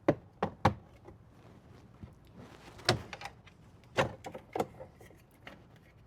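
Sharp plastic clicks and snaps from a Toyota Tacoma's rear-door window switch panel being pried out with a plastic trim tool and its connector unlatched: three quick clicks in the first second, then a few more spaced out.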